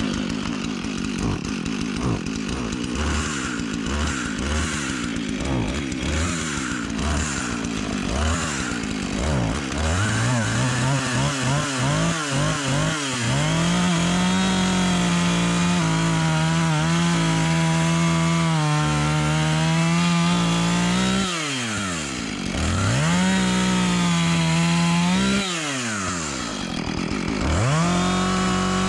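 Husqvarna 450 two-stroke chainsaw running unevenly at lower revs for about ten seconds, then revved up to full throttle and held there cutting into a spruce log. Twice in the second half the engine drops off briefly and revs back up into the cut.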